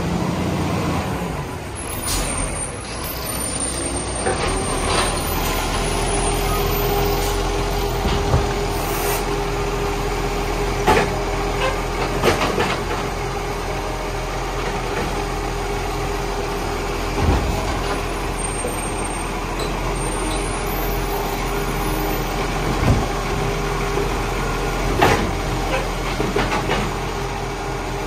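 Side-loader garbage truck running as its automated hydraulic arm grabs, lifts and tips green-waste wheelie bins into the body, with a steady whine and the repeated knocks of bins banging against the arm and hopper.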